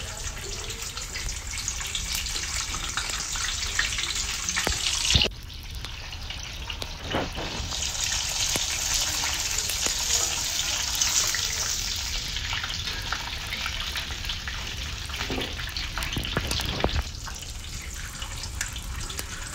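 An egg frying in plenty of hot oil in an aluminium pan, the oil sizzling steadily with a few sharp crackles; the sizzle cuts out abruptly about five seconds in and builds again.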